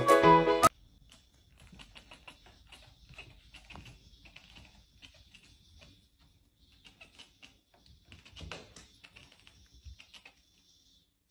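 Music cuts off under a second in; then faint, irregular light clicks and taps of a cat's claws on a wooden parquet floor, with a faint high steady tone behind them.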